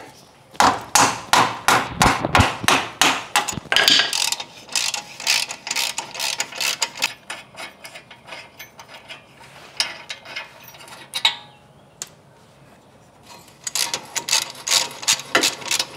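Ratchet wrench with a 17 mm socket clicking in fast runs as brake caliper bracket bolts are backed out, with a few lone clicks in a quieter middle stretch and more clicking near the end.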